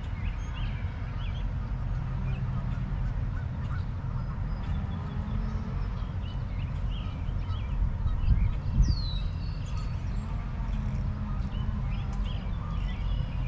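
Wind rumbling on the microphone, with geese honking and small birds calling over it, including one falling whistle about eight and a half seconds in.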